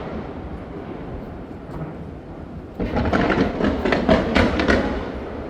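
Aerial fireworks: a low rumbling lull, then about three seconds in a rapid run of sharp bangs and crackles, about four to five a second.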